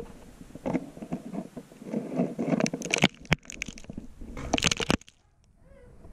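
A camera knocking and scraping against the dirt and rock walls of a narrow hole as it is lowered and spins, with sharp knocks and a crunching rub among them. It goes nearly quiet for a moment about five seconds in.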